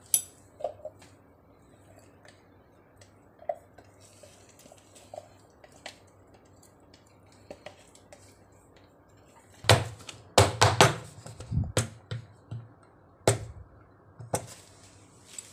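Quiet handling of a plastic jug and small clicks as thick cold process soap batter is poured into a silicone-lined loaf mold, then a run of loud knocks from about ten seconds in as the filled soap mold is rapped on the counter to settle the batter.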